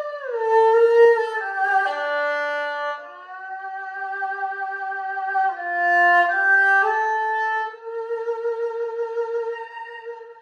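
Ebony-bodied erhu, the two-stringed Chinese bowed fiddle, played solo: a slow, melancholy phrase of held notes joined by sliding pitch changes. It ends on a long held low note that fades away near the end.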